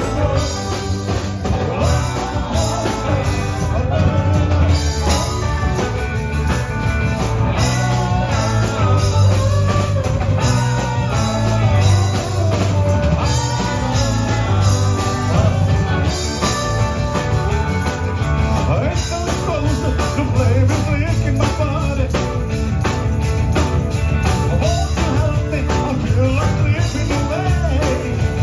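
A rock and roll band playing live, with electric guitars, a drum kit and singing.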